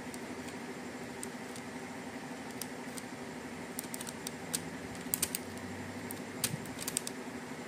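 Thin clear plastic protector film crackling in short sharp clicks as it is lifted and pressed down onto a scooter's plastic instrument-cluster cover, the clicks bunching about five and six and a half seconds in. A steady low hum runs underneath.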